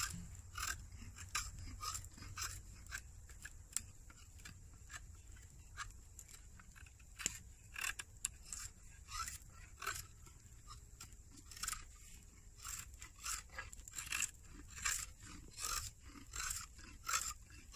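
An antler-handled mocotaugan (crooked knife) shaving a dried branch in repeated pull strokes. Each stroke is a short scrape as bark and wood peel away, about one or two a second.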